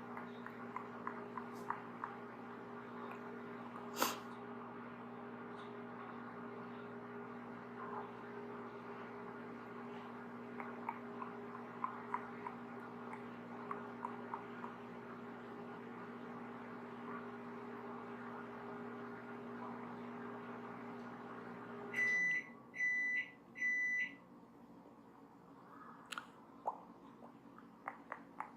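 Microwave oven running with a steady hum, then stopping about three-quarters of the way through and giving three short high beeps as it finishes. Faint scattered ticks and one sharp click about four seconds in are heard over the hum.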